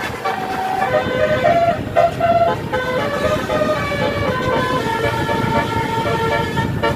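Telolet basuri musical air horn on a tour bus sounding a run of steady notes that change pitch in steps, over the bus's engine and road noise.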